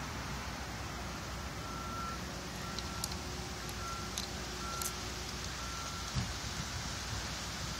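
A vehicle's reversing alarm beeping about once a second, five beeps at one steady pitch, over a steady hum of traffic noise.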